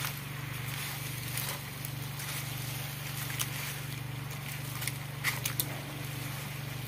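A wooden spatula stirring razor clams in their shells in a wok: scattered clacks and scrapes of shells and spatula against the pan, with a few sharper knocks about five seconds in, over a steady low hum.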